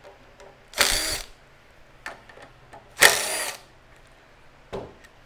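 Cordless driver spinning in two short bursts, about a second in and about three seconds in, each spinning up and winding down, as it backs out the carburetor mounting fasteners on a small pressure washer engine. A shorter burst comes near the end, with light clicks between the bursts.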